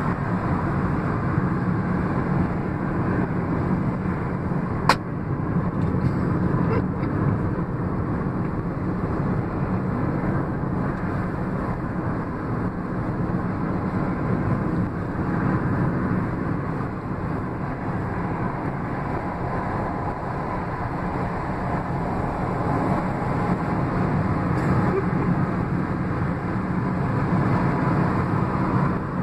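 Steady road and wind noise inside a car at highway speed, with a rear window open, and a single sharp click about five seconds in.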